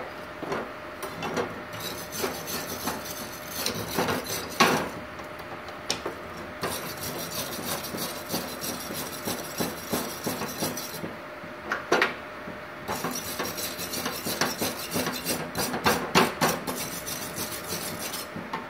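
Hand wire brush scrubbed quickly back and forth over a welded aluminium plate, in three runs of scratchy strokes with a few sharp knocks between them.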